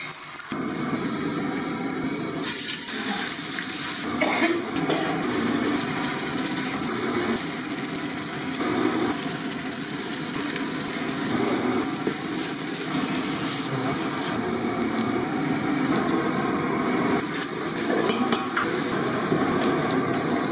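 Steady rushing, hissing noise of cooking on a gas stove, with stirring in an iron kadai and then in an aluminium pot. The sound changes suddenly a few times.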